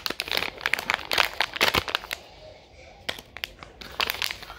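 Packaging of a small magnetic razor holder being crinkled and torn open by hand: irregular crackles and rustles, busy for the first two seconds, quieter for a moment, then busy again from about three seconds in.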